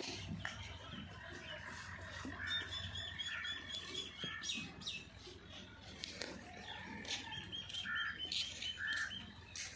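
Birds calling and chirping: repeated short call notes, with a quick run of high rapid notes about two and a half seconds in and again from about seven seconds in.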